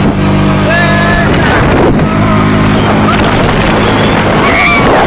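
ATV (quad bike) engine running steadily while riding, with wind buffeting the microphone.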